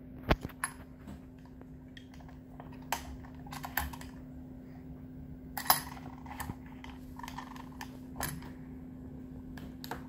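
Scattered light metallic clicks and taps, about a dozen at irregular times, as a Master Lock 570 padlock is clamped in a small bench vise and handled, with the loudest clicks near the start and just before six seconds in. A steady low hum runs underneath.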